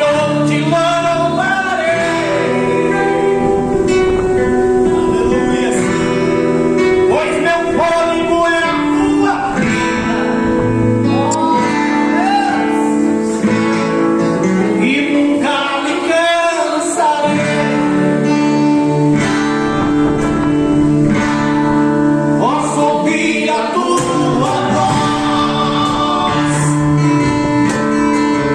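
Live worship song: a singing voice over guitar and other instrument accompaniment, playing steadily throughout.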